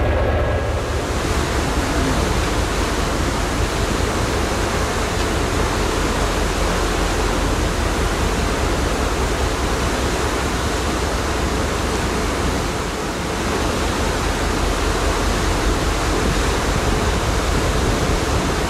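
Steady rushing noise of wind and sea on a moving ferry's deck, the wind buffeting the microphone, with a brief lull about two-thirds of the way in.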